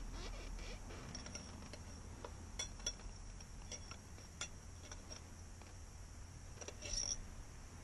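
Faint, irregular small clicks and clinks, a dozen or so spread unevenly, over a low steady hum.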